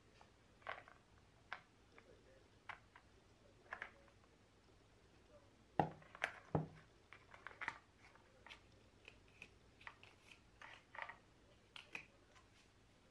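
Hands handling iPhone 12 packaging: scattered faint clicks, taps and crinkles of the paper screen wrap and cardboard inserts. Two firmer knocks come near the middle, as the phone is set down on the table.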